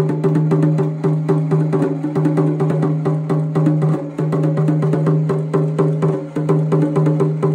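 A c.1880 Roullet et Decamps drumming bear automaton beating its small drum in a fast, steady roll of stick strokes, with the drum's ring held under the strokes.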